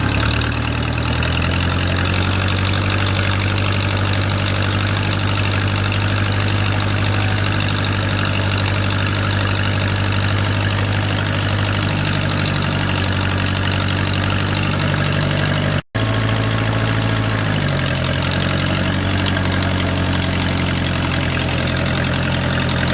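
Case 430 farm tractor engine running steadily while driving in a low gear range, its pitch dropping a little as the engine slows about three-quarters through. The sound cuts out for a split second just before that.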